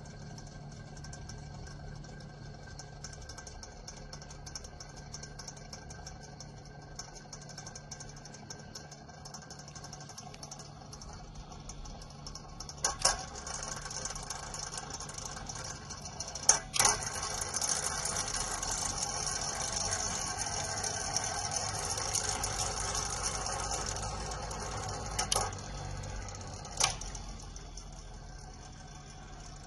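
Comfort Zone 9-inch cradle fan running with a steady hum and a fast, fine rattling tick. There are a few sharp clicks, and the rushing air gets louder for several seconds in the middle before settling back.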